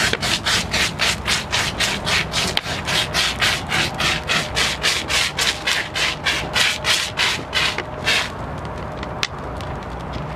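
Backpack fire extinguisher spraying a jet through its hand nozzle with a loud hiss that pulses about four times a second, then cuts off about eight seconds in. After that a steadier low rush remains, with a few sharp clicks.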